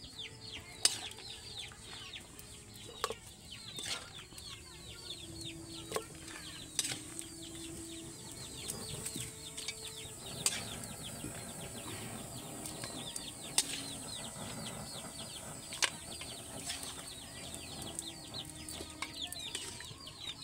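Many small birds, likely chicks, peeping in quick falling chirps throughout. Sharp clinks of a metal ladle against the wok and aluminium pot come now and then.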